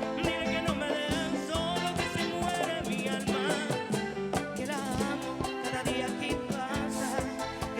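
Live bachata band music: a lead guitar melody over a steady percussion beat.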